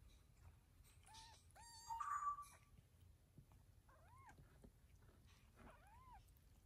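Newborn kittens mewing softly while nursing: about five short, high, thin mews, the loudest about two seconds in.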